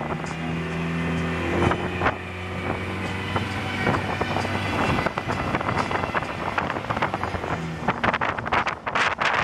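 A tour boat's engine hums steadily while wind buffets the microphone on the open deck, with heavier wind gusts near the end.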